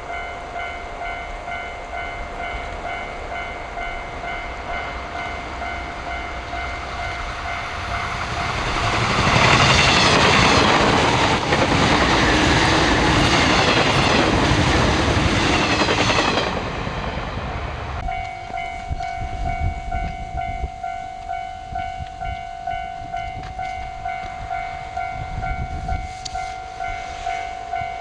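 Japanese level-crossing warning bell ringing steadily as an express train approaches. About nine seconds in, the train passes close by, a loud rush of wheels and rail clatter lasting about seven seconds. After that the crossing bell rings alone again with a regular pulsing beat.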